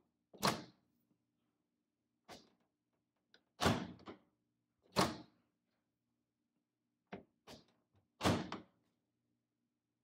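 Kenmore over-the-range microwave door being pulled open and pushed shut by its handle. About four loud clacks of the door and its latch come with several lighter clicks, some followed by a short rattle.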